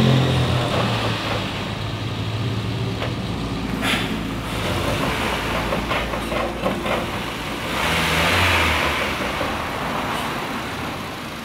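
Honda New Civic engine running as the car is driven off, with a few sharp knocks about four seconds in and a cluster around six to seven seconds in, and a swell in level near the end. The engine mount is broken and leaking oil, which lets the engine rock up and down.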